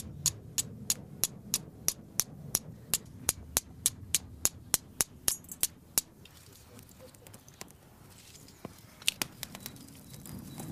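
Steel striker struck repeatedly against flint to throw sparks for lighting tinder: sharp clicks about three a second, quickening slightly, stopping about six seconds in, with a few more strikes near the end.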